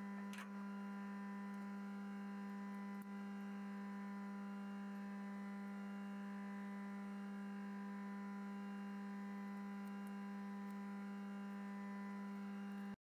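Steady electrical hum: one low tone with a stack of even overtones, unchanging, that cuts off abruptly near the end.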